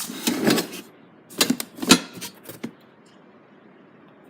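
Rattling and clattering of loose hard parts being rummaged through, in two bursts, the second ending in a sharp knock about two seconds in.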